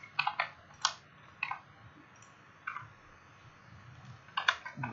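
Computer keyboard and mouse clicking: a few clicks near the start, single clicks spread through the middle, and a quick run of clicks near the end.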